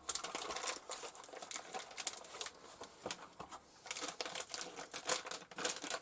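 Packaging being crinkled and pulled off as a part is unwrapped, an irregular rapid crackling with sharp snaps.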